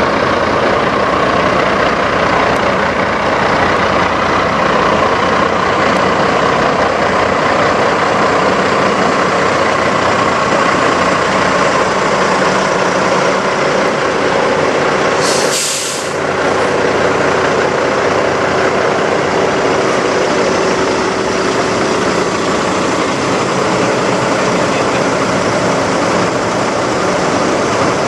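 Older Freightliner cab-over semi's diesel engine idling steadily. About fifteen seconds in, a sharp hiss of compressed air from the truck's air system lasts about a second.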